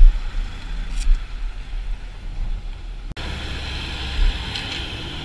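Road traffic passing on a street, a steady low rumble of vehicles; about three seconds in the sound changes abruptly and carries on as a fuller traffic noise.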